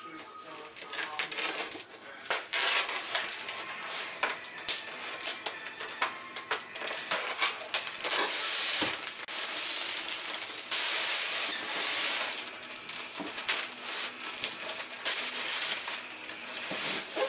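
Scissors snipping and scraping at packing tape and plastic wrap on a styrofoam shipping cooler, with plastic crinkling and rustling throughout. About halfway through comes a longer, louder stretch of tearing and crinkling as the wrap is pulled away.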